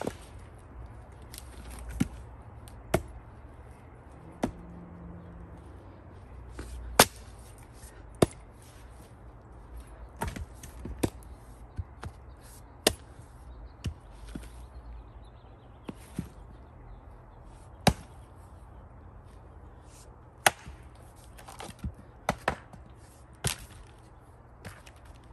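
A splitting axe chopping firewood: sharp, irregular strikes into the wood, about fifteen in all, one every one to three seconds.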